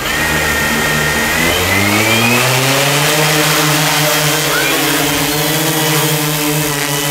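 Large quadcopter's four Emax MT3515 brushless motors driving 15-inch carbon propellers, spinning up for takeoff. The hum and a high whine rise in pitch over about a second and a half as it lifts off, then hold steady as it climbs.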